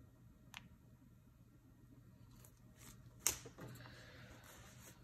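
Quiet room tone with small handling sounds: a faint click about half a second in, then a sharper tap about three seconds in, followed by a soft rustle, as the icing piping bag is set down on the baking mat.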